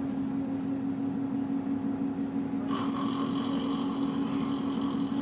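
Steady drone of a bus running, heard inside the passenger cabin. About halfway through, a higher-pitched whine joins it and holds for a couple of seconds.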